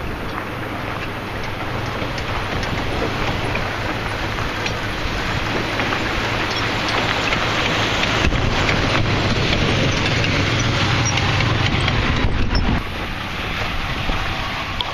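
Lifted van on big off-road tyres driving slowly over a dirt track: engine running with a steady low hum under a noisy rush of tyres on dirt and wind on the microphone. It grows louder as the van comes close, then drops off suddenly about thirteen seconds in.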